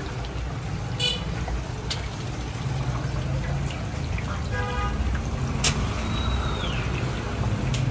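Street traffic running with a steady low rumble, a short car horn toot a little past the middle, and a few sharp clicks.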